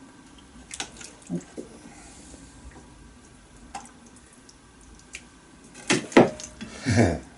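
Hot stock dripping and trickling back into a full cooking pot as a whole cooked chicken is lifted out, with scattered small clicks. Near the end come a few short, louder sounds, one of them low and pitched.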